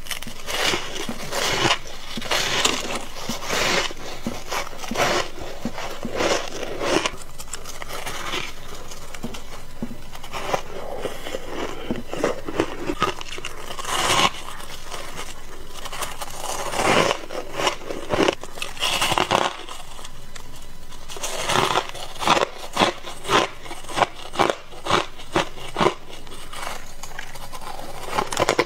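Crunching bites and chewing of soft, fluffy white ice, a steady crackly crunch. In the last several seconds it turns into a quicker run of louder, sharper crunches, about two a second.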